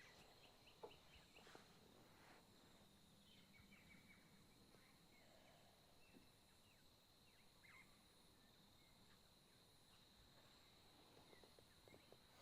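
Near silence: faint background hiss with a steady high-pitched tone, scattered faint chirps, and a soft click about a second in.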